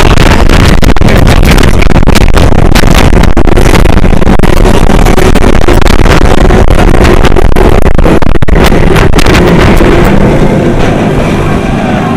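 Intamin steel roller coaster train running at speed, with heavy wind noise on the on-ride microphone and a clatter of sharp clicks from the ride. It quietens a little near the end as the train slows.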